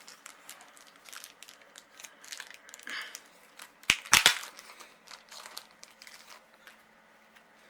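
Plastic packaging crinkling and rustling as it is handled, with a cluster of sharp clacks about four seconds in, the loudest sounds; the handling dies away near the end.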